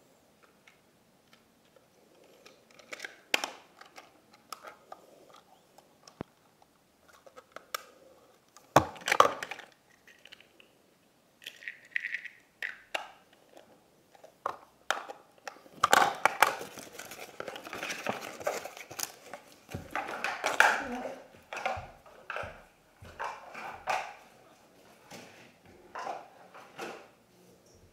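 Small plastic Polly Pocket toy pieces being handled: scattered clicks, snaps and light clatter, busiest a little past the middle.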